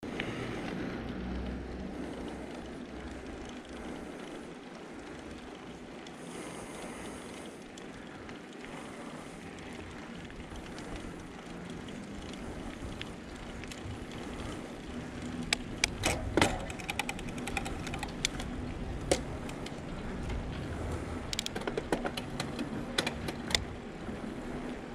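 Mountain bike rolling on asphalt: steady tyre and wind noise, with scattered sharp clicks and rattles from the bike through the second half.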